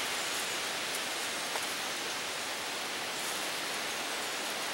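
A steady, even hiss with no clear separate strikes.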